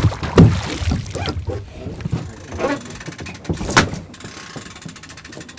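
Irregular knocks and thumps as a gaffed conger eel is hauled over the side onto a fishing boat's deck, the loudest near the start and about four seconds in.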